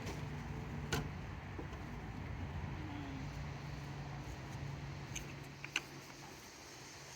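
Low steady hum of a motor vehicle engine running, fading away after about five seconds, with a sharp click about a second in and a few light clicks near the end.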